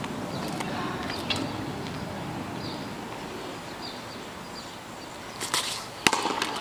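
Pitcher's shoes scuffing on asphalt as he strides through a stickball delivery, then one sharp smack of the pitched ball just after six seconds in, over faint bird chirps.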